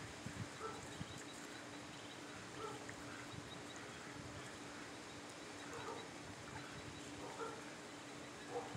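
Ducks giving short, soft calls about once a second, with faint high peeps from ducklings in the first few seconds.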